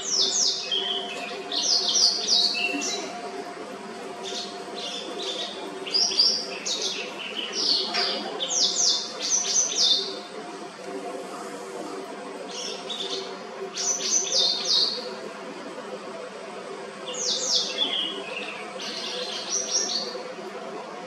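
White-browed wagtail singing: loud, clear, high chirps and trills in four bursts, each a few seconds long, with short pauses between them. A faint steady hum runs underneath.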